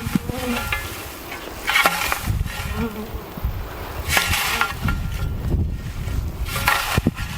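Honeybees buzzing close by, the buzz wavering in pitch as they fly about, over a low rumble, with a broad swishing noise about every two seconds.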